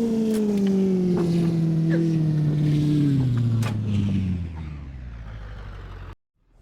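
Vehicle engine running on the road, its pitch falling steadily over about four seconds as the vehicle slows, then quieter until it cuts off suddenly near the end.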